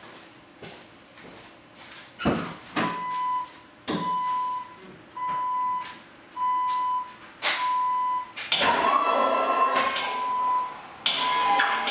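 A car door thumps, then the Jeep's warning chime beeps evenly about once a second. About eight and a half seconds in, the Western snowplow's electric hydraulic pump whirs as the blade lifts. It stops, then runs again near the end while the chime keeps beeping.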